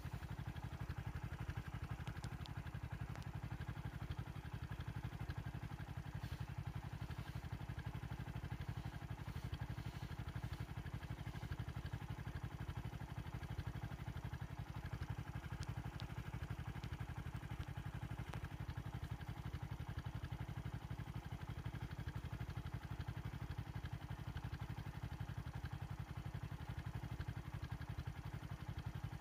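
A vehicle engine idling steadily, a low, even running sound with no change in speed.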